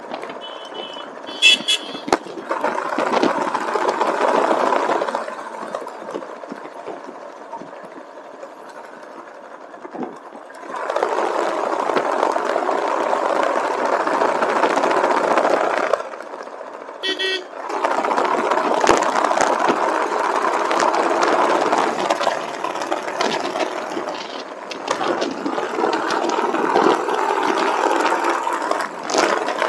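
Road noise of a motorcycle ride, wind and engine swelling and easing in long stretches. Two short vehicle-horn toots come through, one about a second and a half in and another about seventeen seconds in.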